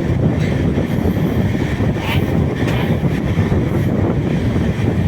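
Steady rumble of an Indian Railways passenger express's coach wheels running on the rails, heard from aboard the moving train.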